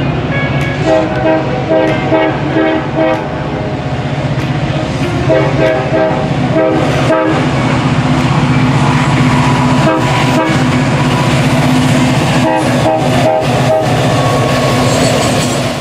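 Diesel locomotive five-chime air horn giving a horn show: runs of quick short chord blasts, then long held blasts, with more quick blasts near the end, over the steady drone of a locomotive engine working hard. The sound cuts off suddenly at the end.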